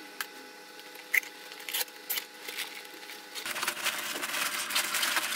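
A small knife slitting the seal of a cardboard LEGO box, with a few light clicks and scrapes. From about three and a half seconds in, plastic bags of LEGO pieces crinkle as they are pulled out of the box.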